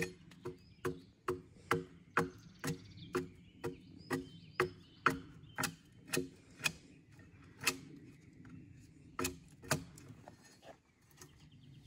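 Broad hewing axe biting into the side of a log, short sharp strikes about two a second, thinning to a few scattered blows after about seven seconds.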